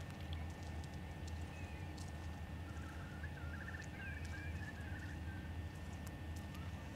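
A steady low rumble, with a small bird's quick chirping trill and one gliding call for a couple of seconds in the middle.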